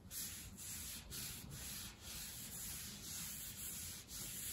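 Hand rubbing back and forth on a pine board, in repeated short strokes about two a second.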